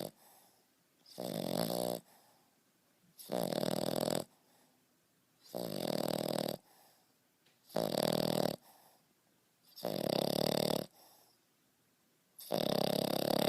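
A 5½-month-old French Bulldog puppy snoring in its sleep: loud, regular snores about every two seconds, each lasting about a second, with quiet breaths between them. Heavy snoring like this is typical of the breed's short-nosed, narrow airway.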